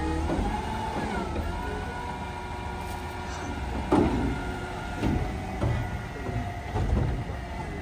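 Mack LR front-loader garbage truck running its hydraulics as the Curotto Can arms swing the can down from over the cab to the front of the truck. The hydraulic whine shifts in pitch early on and then holds steady over the engine's low running. A sharp bang comes about four seconds in, followed by a few lighter clunks.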